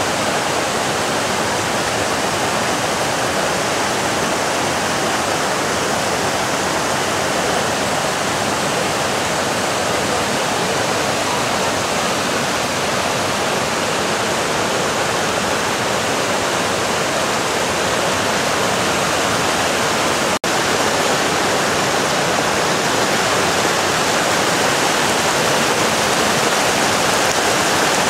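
Steady rush of the Roaring River cascading over boulders: a continuous, even wash of water. The sound cuts out for a split second about two-thirds of the way through.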